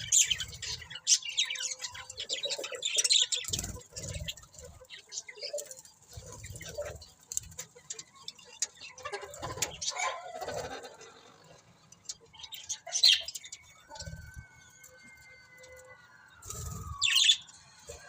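Budgerigars chirping and chattering in quick bursts of short, high chirps, busiest in the first few seconds and again near the middle, with a louder chirp near the end. Soft low thumps come with some of the bursts.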